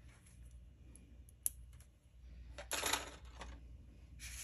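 Faint small clicks and rustles of jewelry being handled: a sharp click about a second and a half in, a short rustle a little before three seconds, and another rustle near the end.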